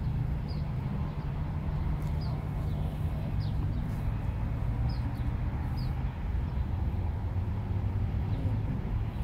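Small birds giving short, falling chirps every second or two, over a steady low rumble of distant traffic or machinery.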